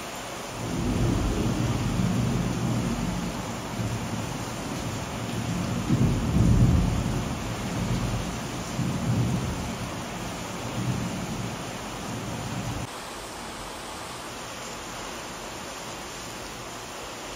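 Steady rain with a long roll of thunder. The low rumble starts about half a second in, swells several times, is loudest around the middle, and cuts off suddenly about two-thirds of the way through, leaving the rain alone.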